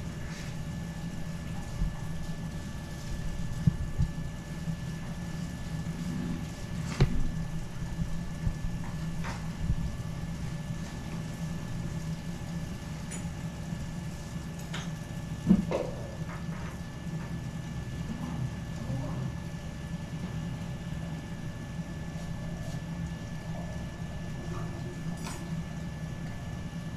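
Steady machine hum with a thin high tone over it, and a few scattered knocks and clicks.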